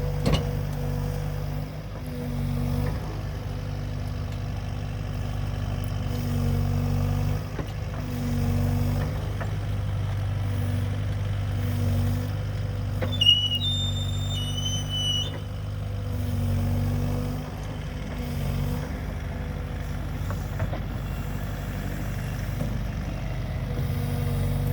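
Excavator's engine running steadily, its note swelling and easing every few seconds as the controls are worked. There is a sharp knock about halfway through, followed by a brief high-pitched stepped squeal or chirp.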